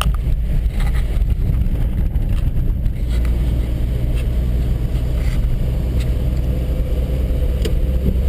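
Opel Corsa A car running, a steady low rumble with no revving.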